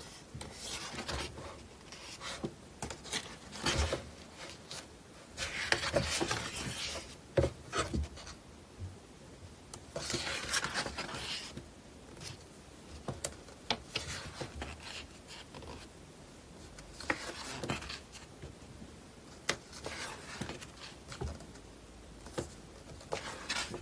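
Pages of a photo book being turned one after another: paper sliding and rustling in short swishes, with light taps and clicks as the pages are handled and laid flat.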